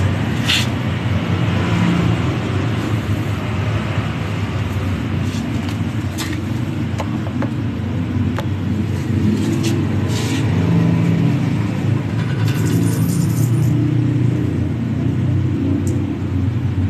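A steady low rumble of background noise, with a few sharp clicks and short rustles scattered through it.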